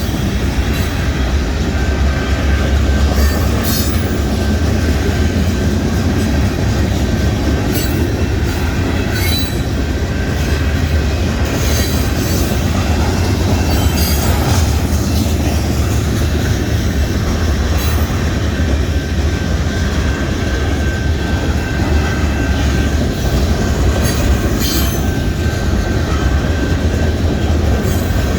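Union Pacific mixed freight train's cars rolling past, a loud steady rumble with irregular clicks of wheels over rail joints and a thin, steady high wheel squeal.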